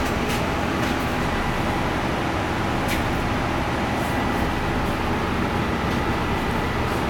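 Steady background machinery running: an even low rumble with a faint steady whine over it, and a few faint light ticks.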